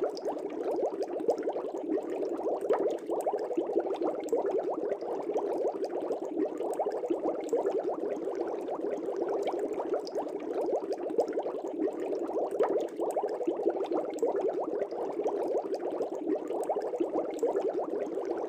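Aquarium water bubbling steadily: a continuous dense stream of small bubbles rising and popping at the surface.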